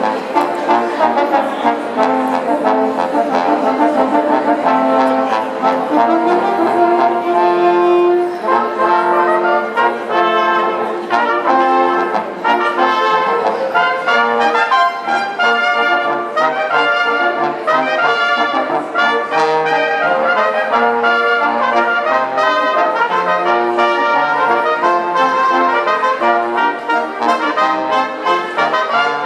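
A brass ensemble of trumpets, French horn and trombone plays a piece of music with steady, continuous changing notes.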